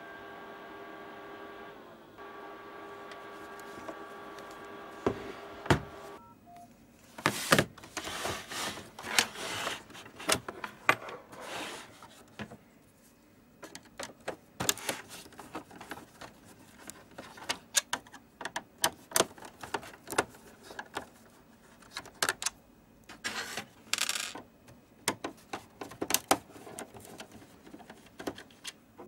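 A steady pitched electronic tone for about six seconds, then irregular clicks, taps and short rattles of small hard parts being handled, typical of a device being taken apart.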